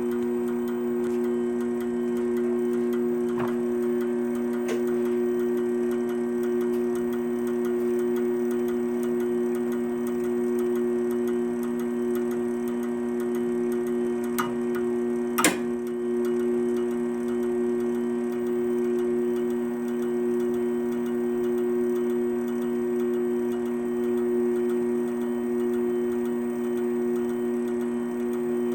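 Wire-spooling machine winding .035-inch welding wire, running with a steady hum and a light, constant ticking. A few clicks, the sharpest about halfway through, come as the traverse reaches the flange and trips its reversing switch. That clicky noise is the sign that the wire is pulling tight against itself and the winding is set up right.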